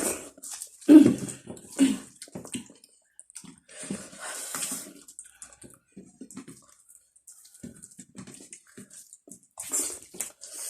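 Close-miked eating sounds of a meal of black rice and potato curry: wet chewing and mouth smacking in irregular bursts, loudest about one and two seconds in.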